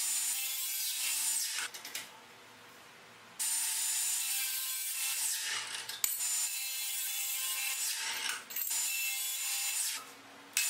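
4½-inch angle grinder with a thin cut-off disc, mounted in a chop-saw stand, cutting through stainless steel stock. The loud grinding comes in about four stretches of one to three seconds, with short breaks between them.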